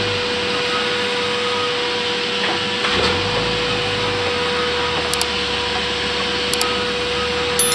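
Large sawmill band saw running with a steady hum while timber is fed past the blade, with a few sharp knocks from the wood on the table, one about three seconds in and one near the end.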